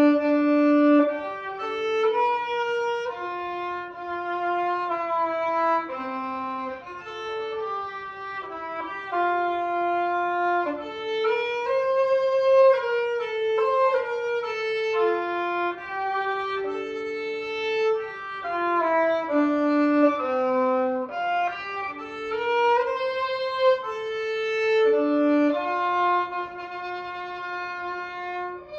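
Background music: a bowed violin playing a flowing melody of held notes, at times two notes together.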